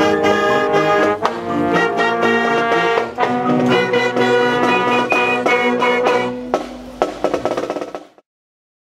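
Youth band of saxophones, clarinets, trumpets, trombones and a sousaphone playing a tune with drum hits, closing on a held final chord about six and a half seconds in; it fades and cuts to silence near the end.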